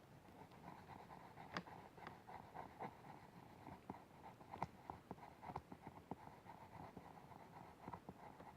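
Faint scratching of coloured pencil crayon on paper: quick, irregular back-and-forth colouring strokes, with small ticks as the pencil tip strikes the paper.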